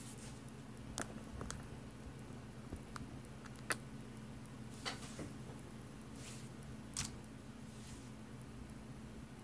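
Steady low hum with a handful of short, sharp clicks scattered at irregular intervals.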